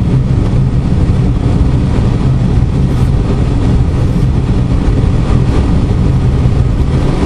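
Steady cabin noise of a light aircraft descending on a landing approach: rushing airflow with an even, low drone underneath.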